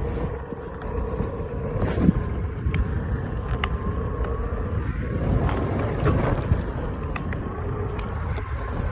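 DIY electric skateboard riding along: a steady motor whine that wavers a little in pitch, over a low rumble of wheels and wind on the microphone, with a few sharp clicks from the deck.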